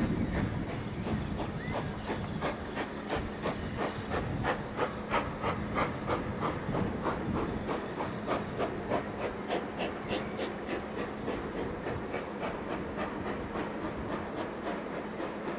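Steam tank locomotive No. 29, a 0-6-2T, running slowly with its train, with a regular beat of about three a second over a steady hiss of steam. There is a heavier low rumble near the start.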